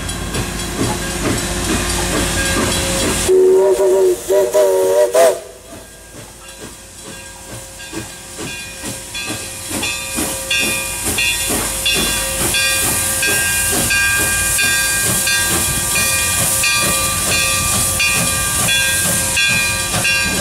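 Chinese-built QJ 2-10-2 steam locomotive blowing its chime steam whistle for about two seconds, several notes at once. It then works its train, with a steady run of exhaust chuffs and a growing hiss of steam.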